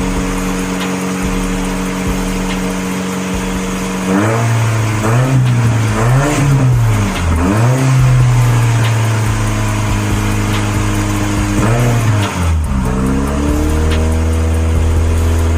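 Car engine running steadily, then revved in several quick rising-and-falling blips about four seconds in, held at raised revs for a few seconds, and dropping back to a lower, steady idle near the end.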